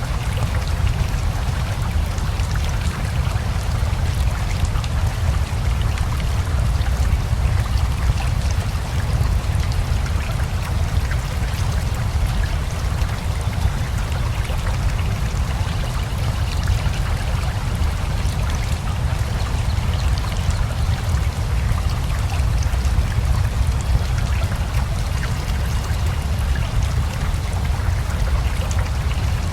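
Steady rain mixed with rushing river water, a constant low rush with fine patter of drops on top.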